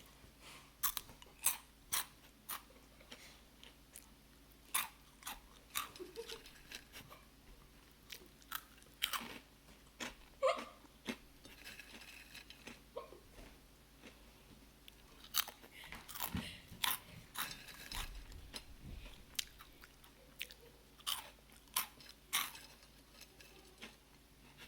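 Someone biting and chewing Gamjakkang, crisp Korean potato-stick snacks, with a run of sharp, irregular crunches.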